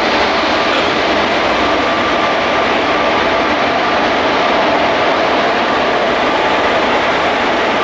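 Long electric-hauled passenger express train rolling through a station as it picks up speed: a steady, loud noise of wheels running on the rails, with faint steady tones in it.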